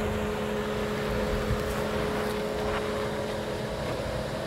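Suzuki Jimny's 1.5-litre four-cylinder petrol engine running at steady low revs as the vehicle crawls through a sandy rut off-road.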